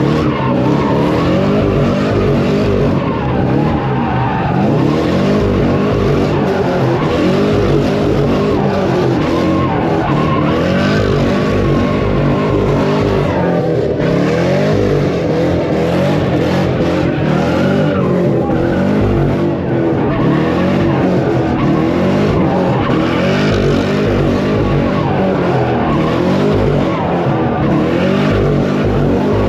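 Car engine revving hard while its tyres squeal continuously, spinning donuts with heavy tyre smoke.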